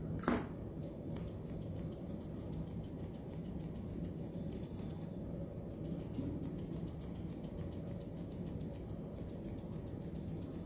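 Grooming scissors snipping through a Maltipoo puppy's facial fur: a quick, even run of crisp snips, broken by a couple of short pauses, over a steady low background hum.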